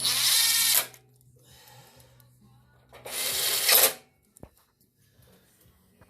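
Two short bursts of hissing from a pressurised spray, each just under a second long and about three seconds apart.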